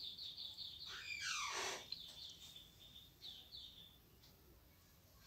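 Faint birds chirping in the background: rapid runs of short high chirps, with a louder falling call about a second in.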